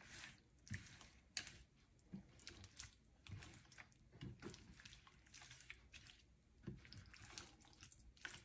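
Faint, irregular wet squelching of a spatula stirring raw chicken pieces through egg and spice marinade in a plate.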